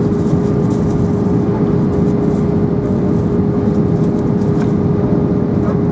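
Airbus A320 cabin noise from a window seat over the wing during the descent: a steady rushing roar of the engines and airflow, with a constant hum running through it.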